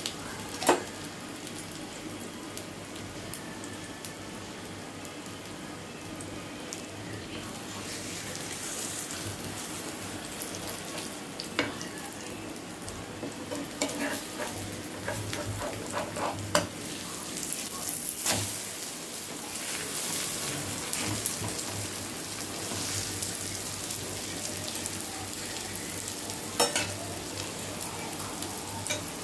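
Vegetable omelette sizzling in plenty of hot oil in a flat frying pan, a steady frying sizzle. A wooden spatula knocks and scrapes against the pan a few times.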